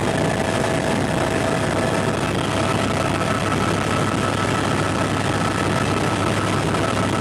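Helicopter in flight, heard from inside the cabin: a steady, dense engine and rotor noise with a constant high whine running over it.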